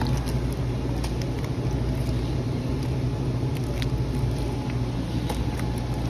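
Steady low rumble of store background noise, with a few light ticks and crinkles as plastic-wrapped meat packages are handled.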